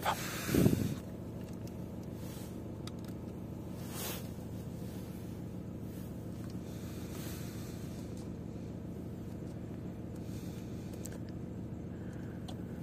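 Opel Zafira's 1.6-litre diesel engine idling steadily, heard from inside the cabin. A brief, loud, low sound comes about half a second in.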